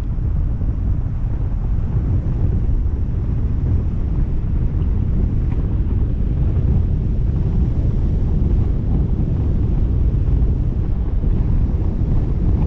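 Steady wind rumble buffeting the microphone, a loud, even low roar with no breaks.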